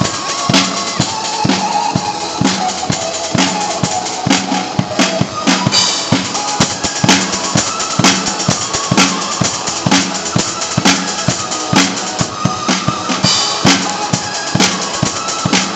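Acoustic drum kit played live in a steady, driving beat of bass drum and snare with cymbal crashes, over a backing track of electronic dance music.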